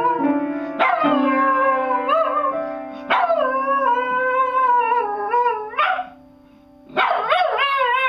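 A dog howling in long, wavering notes while pressing the keys of an upright piano with its paws, low piano notes ringing on beneath the howls. New keys are struck about a second in and again about three seconds in, and the howling breaks off about six seconds in before starting again a second later.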